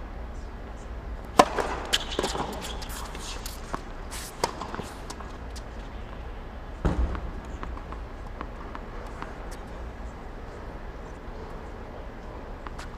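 Tennis balls struck by rackets and bouncing on a hard court, sharp pops that echo around an empty stadium. The loudest hit comes about a second and a half in, a run of hits and bounces follows over the next few seconds, and a deeper thud comes near the middle, with fainter ticks after.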